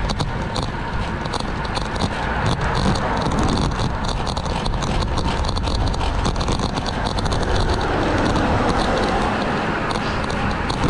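Wind rushing over the microphone and tyre and road noise from a moving road bike: a steady low rumble with a scatter of small high ticks and rattles.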